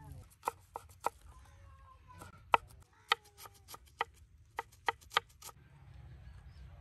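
Large kitchen knife chopping fresh mint on a wooden cutting board: about a dozen sharp, uneven chops that stop about a second before the end.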